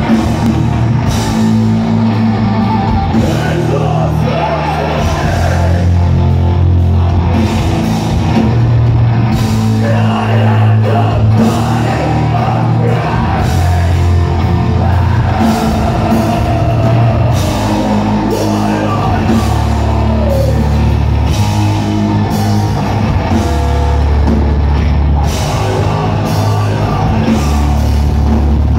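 Hardcore punk band playing live at full volume: heavily distorted guitar and a low bass riff changing notes every second or two, pounding drums, and shouted vocals.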